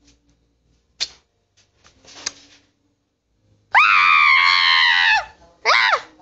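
A person screaming loudly at a very high pitch for about a second and a half, a little past the middle, then a short shriek that falls sharply in pitch near the end. A couple of faint clicks come before it.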